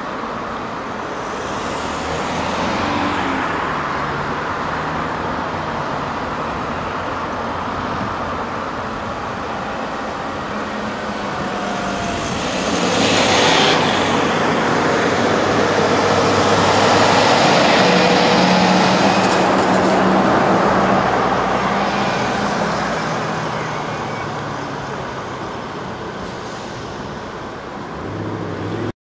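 Street traffic, swelling to its loudest about halfway through as a heavy-haul truck's diesel engine passes close by, with a short hiss as it approaches. The noise then fades.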